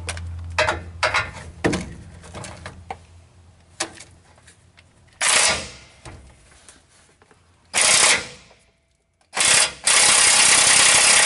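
Impact wrench hammering a 14 mm bracket bolt tight through a long socket extension, in four bursts, the last and longest about a second and a half. A few light metal clicks come first as the socket is fitted onto the bolt.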